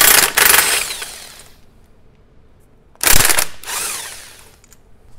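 Impact wrench loosening the driveshaft-to-pinion-flange bolts, running in two bursts: one that trails off in the first second and a half, and a second starting about three seconds in.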